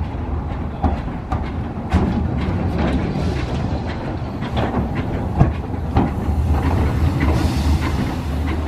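W.G. Bagnall 0-4-0 saddle-tank steam locomotive moving slowly through the station, its wheels clanking irregularly over the rail joints over a steady low rumble, with a hiss of steam about seven seconds in.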